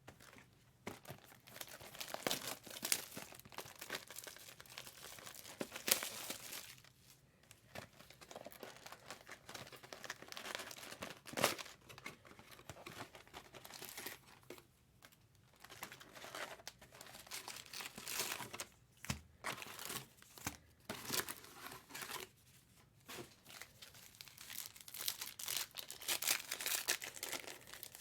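Trading card pack wrappers of 2023 Topps Allen & Ginter crinkling and tearing open, in irregular bursts with short pauses between them.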